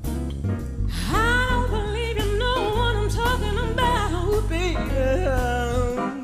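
Live jazz-soul band music: a high, wordless vocal line that bends and wavers in pitch comes in about a second in and holds over the band's steady bass and accompaniment.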